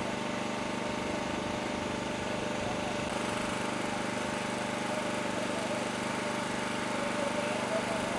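Small engine running steadily, a continuous even buzz.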